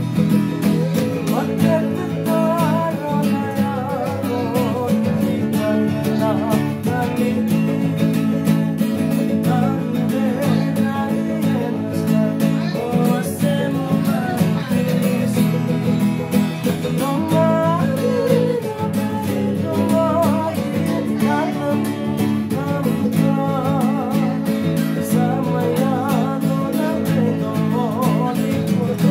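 Acoustic guitar strummed steadily in a continuous song, with singing over it.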